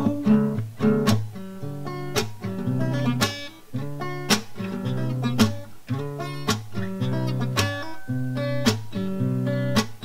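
Acoustic guitar strummed in a steady rhythm, an instrumental passage of ringing chords with a strong stroke about once a second and lighter strokes between.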